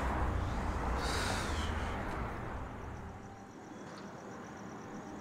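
Night street ambience: a passing vehicle's hiss and low rumble, fading out about three seconds in, after which insects chirp steadily and rapidly.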